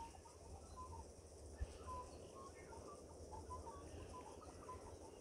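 Faint bird chirps: many short, scattered notes over a quiet background.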